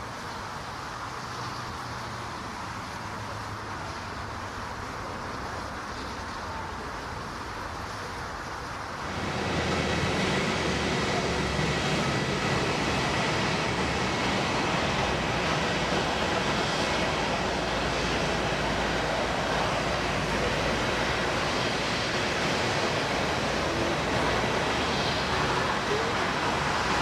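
Jet airliner engines running: a steady rushing noise with a faint high whine. It jumps sharply louder about nine seconds in and holds there.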